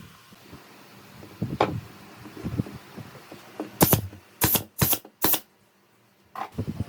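A quick run of four sharp clicks about half a second apart, with a few duller knocks before them.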